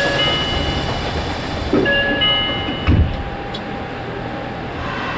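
Subway train running through a tunnel, heard from inside the car: a steady rumble, with high steady tones sounding twice and a couple of low thumps about two and three seconds in.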